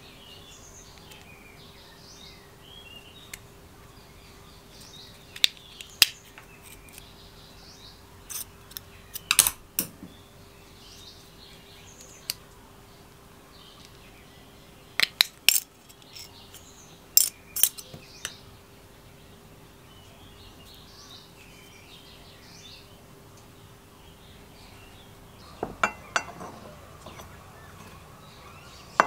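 Sharp metallic clicks and snaps from a small screwdriver prying the pressed-steel dust shield off a sealed ball bearing, in several short clusters. Near the end comes a brief rattle of the opened bearing being handled.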